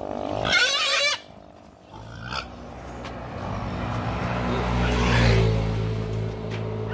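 A pig squeals once, loud and wavering, about half a second in, for under a second. Then a motor vehicle's engine runs close by, growing louder to a peak about five seconds in.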